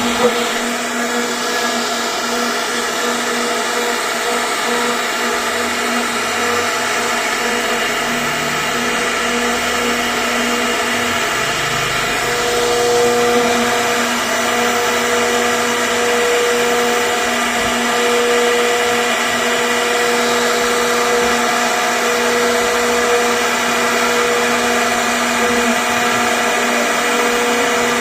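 CNC router spindle running with a steady high-pitched whine while its bit carves wood.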